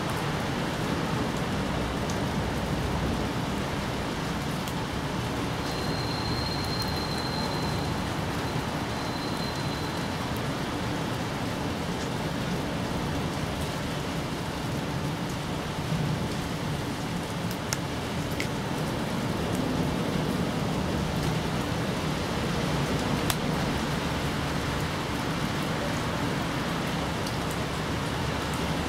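Steady rain falling, a constant even patter of drops.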